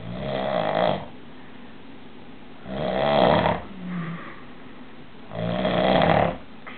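A sleeping man snoring loudly: three long snores about every two and a half to three seconds, with a softer, shorter breath sound between the second and third.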